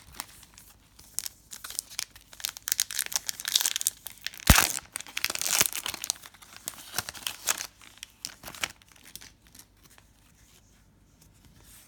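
Trading card pack wrapper torn open and crinkled by hand, a dense crackle with one sharp snap about four and a half seconds in, dying down near the end.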